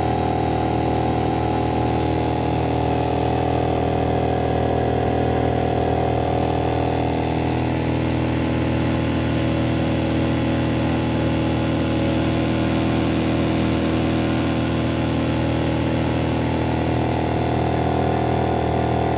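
Small boat's outboard motor running steadily at an even speed, close to the camera.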